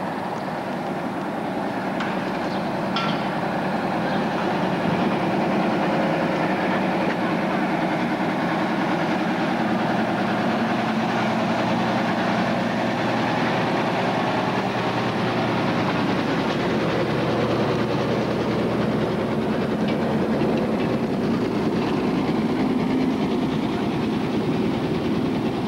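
Double-decker bus engine running close by, with a steady, dense rattling clatter that swells up over the first few seconds and then holds.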